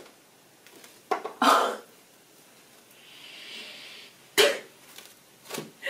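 Tarot cards being handled and shuffled: a few sharp card snaps, the sharpest about four and a half seconds in, and a brief soft rustle midway, with a short breathy burst about a second and a half in.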